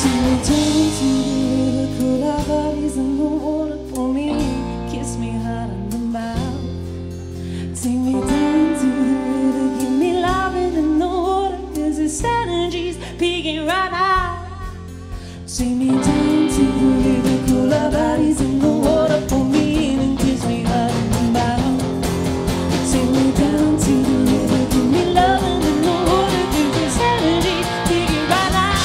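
Live acoustic-pop band playing: acoustic guitar, electric bass and drum kit. The band thins out and drops in level for a few seconds, then the whole band comes back in full about sixteen seconds in.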